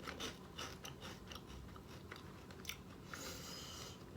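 Someone biting and chewing crunchy pizza-flavoured corn chips, with a few faint, short crunches and a brief hissy rustle about three seconds in.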